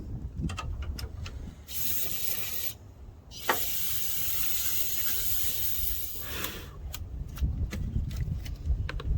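Two bursts of hissing spray, a short one about a second and a half in and a longer, steady one of about three seconds starting near the middle, over a low wind rumble with a few small clicks.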